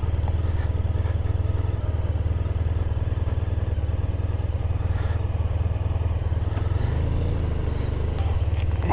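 Motorcycle engine running at low revs as the bike rolls slowly, a steady low rumble; its note shifts briefly about seven seconds in.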